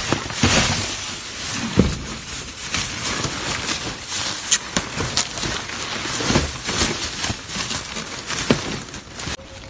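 Clear plastic garbage bags rustling and crinkling and a cardboard box being shifted by hand, with scattered sharp knocks and scrapes.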